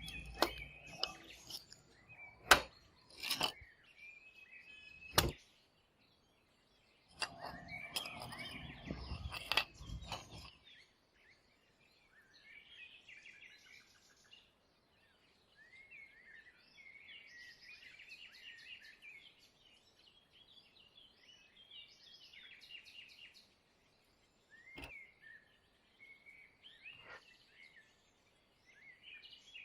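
A few sharp clicks and knocks and a few seconds of rattling, scraping handling noise in the first ten seconds, then faint birds chirping on and off, with two more single knocks near the end.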